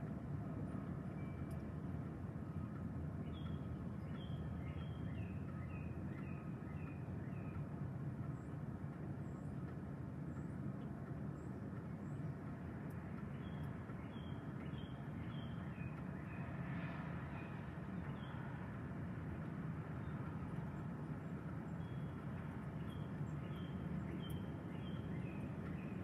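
Strong wind blowing as a steady low rush. Over it, a bird sings groups of short chirping notes three times: near the start, around the middle and near the end.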